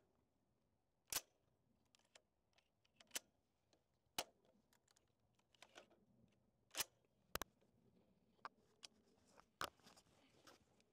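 Quiet handling noise: about six short, sharp clicks and taps scattered through the stretch, with no gunshot.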